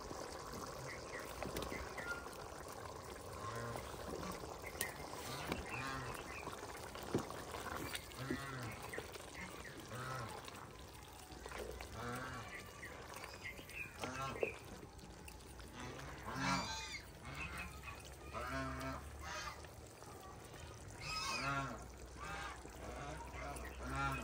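Domestic fowl calling: short, honking calls repeated every second or two, a few louder near the end, over a faint steady background noise.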